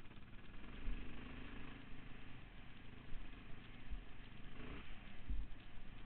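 Yamaha Raptor 660 quad's single-cylinder engine running as it is ridden along a dirt trail, with a few low thumps at about one, four and five seconds in.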